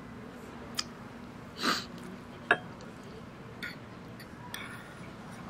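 Diner room ambience: a steady low hum with a few scattered clinks of dishes and cutlery. The loudest is a sharp clink about two and a half seconds in, just after a brief hiss.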